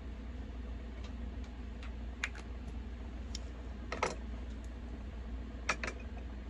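Light clicks and taps from makeup items being handled, irregular and scattered, with the loudest tap about four seconds in and a quick double click near the end, over a steady low hum.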